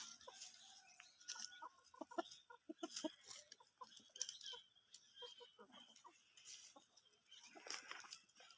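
Chickens clucking faintly in many short notes, with scattered light clicks.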